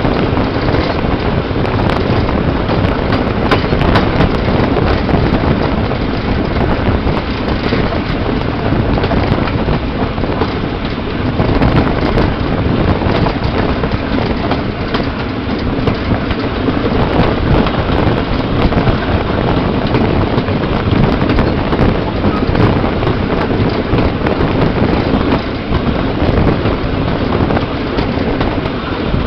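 Steam-hauled goods train running along the track: steady rumble of wagon wheels on the rails, with heavy wind buffeting the microphone.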